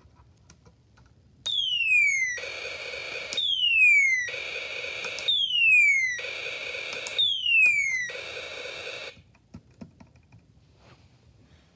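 Electronic sound effect from a Snap Circuits speaker driven by the Space War IC: a falling whistle followed by about a second of harsh buzz, repeated four times about every two seconds, stopping about nine seconds in. Faint clicks of the snap parts being handled follow.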